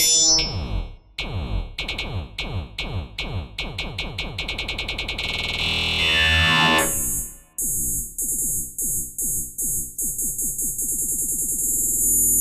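Black MIDI music played through a synthesizer: dense walls of notes in fast repeated falling runs, then a sweeping drop about six seconds in. After a brief break, rapid pulsing notes speed up into a sustained, loud block of sound.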